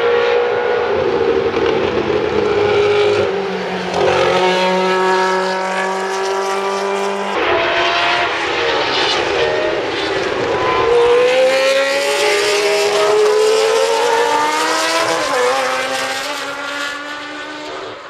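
Historic Formula One cars running at high revs through a corner, two passing one after the other. The engine note steps down and climbs again as they change gear, rising as they accelerate out, and fades near the end.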